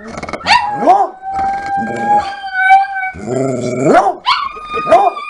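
A coonhound and a Chihuahua howling together. Short rise-and-fall howls come about once a second, overlapping a longer, higher howl held for a couple of seconds.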